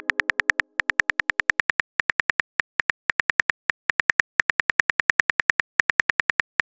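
Simulated phone keyboard typing clicks from a texting-story app: a rapid run of short, identical clicks, about eight a second with a few brief gaps, one click per typed letter. At the very end a short rising whoosh begins as the message is sent.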